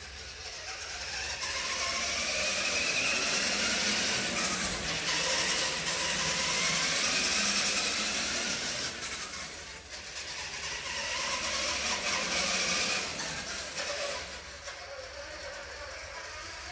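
Electric motor and gear whine of a radio-controlled monster truck driving on concrete, the pitch rising as it speeds up and falling as it slows, in about three runs, quieter near the end.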